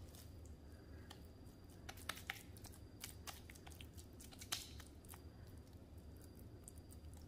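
Faint, soft sounds of raw ground turkey mixture being pressed and patted into a patty between oiled hands, with scattered small wet clicks.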